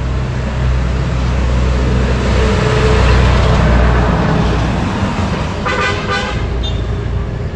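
A cement mixer truck passes on the road, its engine running with a steady low hum and its road noise building to loudest around three to four seconds in. About six seconds in, a vehicle horn gives a short blast.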